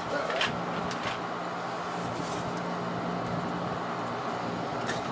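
Steady low machine hum in a workshop, with a few light clicks and taps of small parts being handled at the bench.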